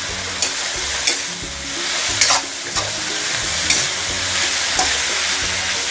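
Sliced eggplant, tomato and long beans sizzling in a hot wok while being stirred. A utensil scrapes against the pan about once a second.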